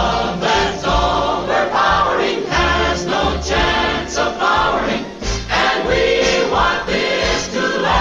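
A choir singing over orchestral music.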